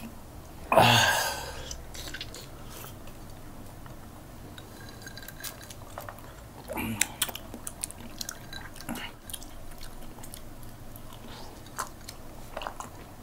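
Close-up eating sounds: biting into orange slices and chewing, with wet mouth clicks and smacks scattered through. About a second in there is one short, louder vocal sound.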